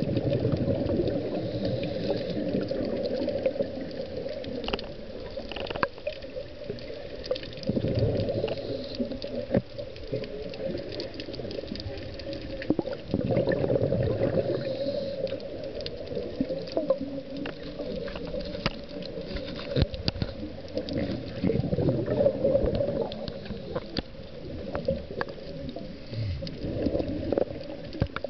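Scuba regulator exhaust bubbles heard underwater: a gurgling bubble rush that swells every several seconds with each exhalation, with scattered small clicks.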